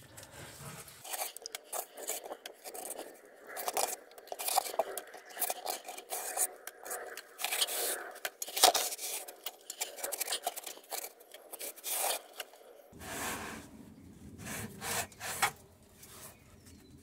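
A hand and a rag rubbing and scraping wet diatomaceous-earth sludge off the fiberglass inside of a pool filter tank, in quick irregular strokes.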